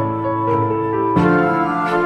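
Slow background music: sustained chords that change about a second in, over a soft, regular beat.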